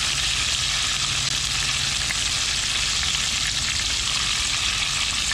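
Battered speckled trout fillets deep-frying in hot oil in a cast-iron pot: a steady sizzle.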